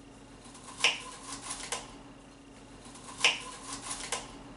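A kitchen knife cutting broccoli on a cutting board: two sharp knocks of the blade on the board, about two and a half seconds apart, each followed by a few lighter taps.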